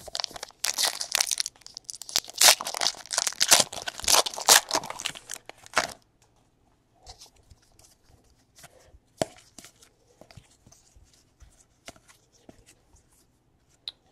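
Trading card pack wrapper being torn open, a dense crinkling rip lasting about six seconds, then only faint scattered rustles and clicks.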